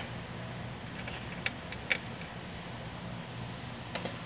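Light, sharp clicks of small parts being handled as the fuel pump access cover and its nuts are fitted by hand. There is one click at the start, three in quick succession about a second and a half in, and another near the end, over a steady low hum.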